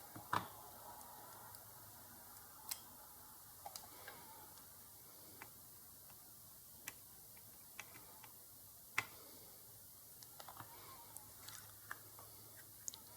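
Scattered small clicks and taps over a quiet background, about a dozen, irregularly spaced, the sharpest about half a second and about nine seconds in.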